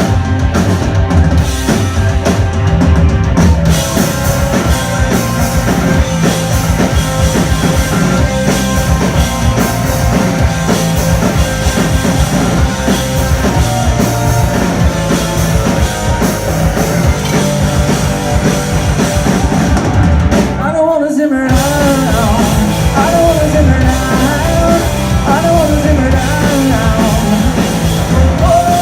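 Live punk-pop rock band playing loudly, with drum kit and electric guitars. The band stops for a moment about two-thirds of the way through, then comes back in with a wavering melodic line over the rhythm.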